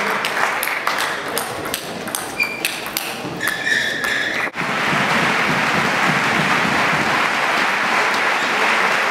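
Table tennis rally: the celluloid ball clicking quickly back and forth off the bats and table, with a few short shoe squeaks on the court floor. About halfway through, the clicks cut off suddenly and a steady wash of noise follows.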